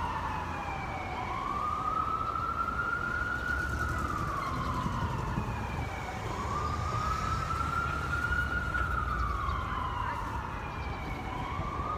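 Emergency vehicle siren on a slow wail, its pitch rising quickly, holding and then sliding down over several seconds; it climbs again about a second in, around six seconds in and near the end. Low street traffic rumble underneath.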